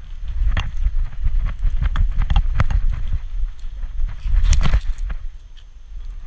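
Irregular clicking and tapping of a small dog's paws and claws on a concrete sidewalk, heard close up from a camera strapped to its back, over a low rumble of the camera mount being jostled. The tapping eases off briefly near the end.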